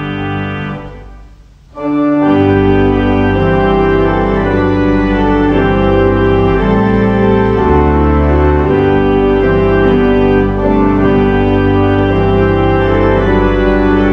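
Organ playing a hymn tune in sustained chords; it fades out about a second in and comes back in full about two seconds in.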